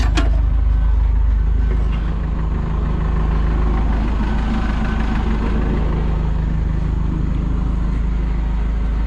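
Kobelco excavator's diesel engine idling steadily, freshly started, with a couple of sharp clicks at the very start.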